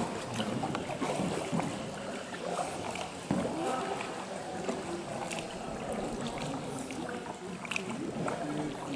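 Water sloshing and splashing around a kayak as it is paddled, with scattered small splashes and faint voices mixed in.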